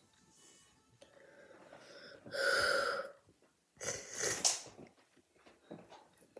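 Two short, loud non-speech noises, likely from one of the children: a squeaky, pitched, wheezy sound lasting about half a second, a little over two seconds in, then a breathy, hissy burst about a second later.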